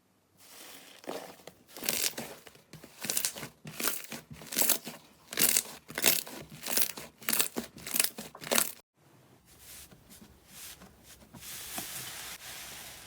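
Slime being worked by hand, giving a run of crisp crackles about two a second. Near the end it cuts to softer handling noise and a steadier hiss.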